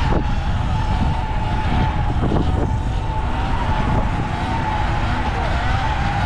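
Sur-Ron X electric dirt bike's motor whining at one steady high pitch that wavers slightly with the throttle, as the bike is ridden on its rear wheel, over heavy wind rumble on the helmet camera.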